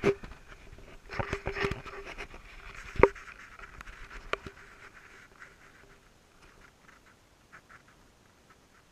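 Shallow river water splashing and trickling, with several sharp knocks in the first half. The sound fades to faint sparse ticks after about five seconds.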